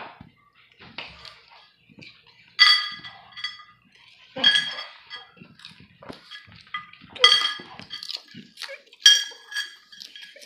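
A plate on the floor clinking four times, about every two seconds, with snuffling eating noises between, as popcorn is eaten face-down off it without hands.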